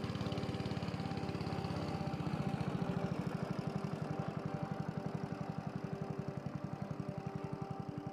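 Small wooden river boat's engine running under way, with an even chugging beat.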